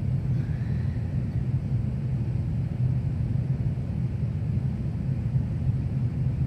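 A steady low hum and rumble, unchanging throughout.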